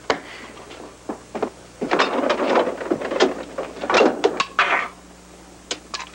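A refrigerator being opened and rummaged in: sharp knocks and clinks with rustling, busiest from about two to five seconds in.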